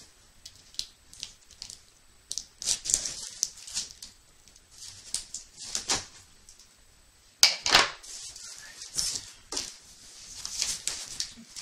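Cardboard shipping box being opened by hand: a cutter slitting the packing tape, then the flaps scraping and rustling in short, scratchy bursts, the loudest about seven and a half seconds in.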